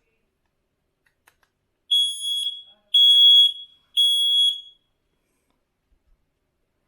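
FireAngel SB1-R battery smoke alarm sounding its push-button test: three loud, high-pitched beeps about a second apart, each a single steady tone.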